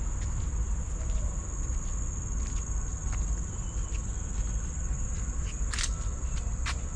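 Steady high-pitched insect drone over a low rumble, with a few short clicks, the clearest one near the end.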